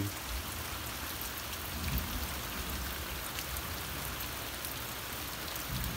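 Slow, steady rain falling on a yard and trees: an even hiss of rain with scattered individual drops ticking.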